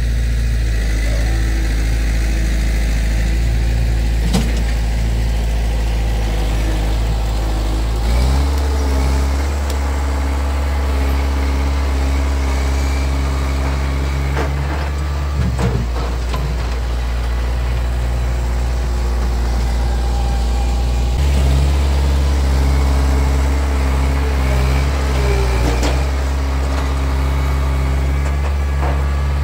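2008 Kubota M5040 tractor's four-cylinder diesel engine running under load while its front loader pushes dirt, the engine note shifting a few times as the work changes. A few brief knocks come through over the engine.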